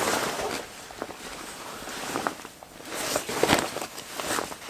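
Irregular rustling and crinkling of a parcel's packaging and a snowmobile suit being handled.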